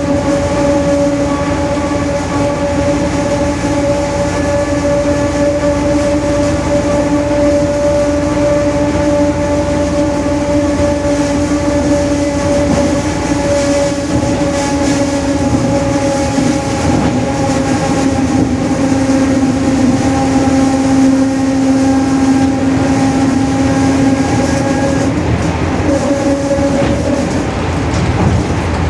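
Rear differential of a Mercedes-Benz OF-1721 bus whining very loud as the bus drives, over the rumble of the running bus. It is one steady pitch with a few higher overtones; the pitch sags slightly in the second half, and the whine fades out a few seconds before the end.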